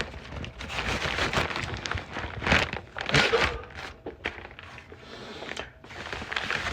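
Fast-food takeout bag rustling and crinkling as it is handled and opened, with a few sharp knocks.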